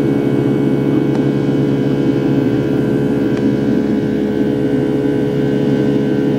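Steady drone of a Boeing 757-300's Rolls-Royce turbofan engines heard inside the passenger cabin in flight, a low rumble with a constant hum of several fixed tones. A passenger calls this engine noise abnormally loud, like being in a propeller plane.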